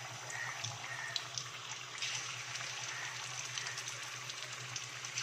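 Marinated chicken pieces frying in hot coconut oil in a kadai: a steady sizzle with scattered crackles and pops, over a low steady hum.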